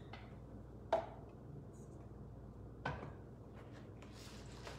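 Two sharp light knocks about two seconds apart as a knife and a flexible plastic cutting mat are handled, then a faint rustle as chopped bacon slides off the folded mat into a stainless steel bowl.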